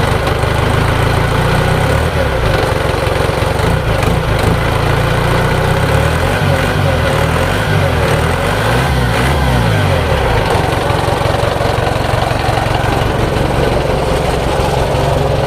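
Isuzu 4JB1 four-cylinder diesel engine running steadily after repair.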